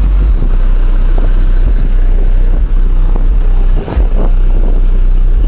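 Four 18-inch Digital Designs 9518G subwoofers on two DD Z-SE amplifiers playing very loud, deep bass, the low note shifting just after the start and dropping out briefly about four seconds in.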